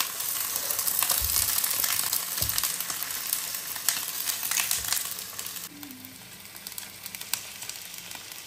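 Raw chicken drumsticks sizzling as they are laid into hot oil in a frying pan, with scattered crackling spits. The sizzle drops to a quieter, steadier hiss about six seconds in.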